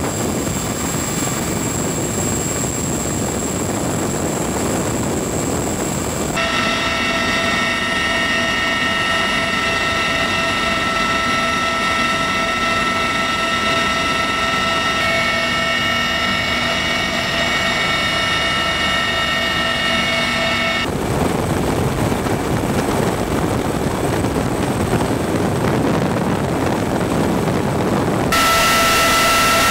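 Sikorsky CH-53E Super Stallion helicopter heard from inside its cabin in flight: a loud, steady rush of its three turbine engines and rotors, with steady high whines on top. The tone changes abruptly a few times.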